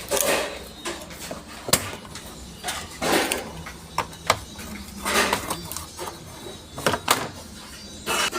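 Irregular knocks, clacks and scrapes of hard objects being handled and set down, about eight or nine sharp hits spread over several seconds, with short scraping sounds between them.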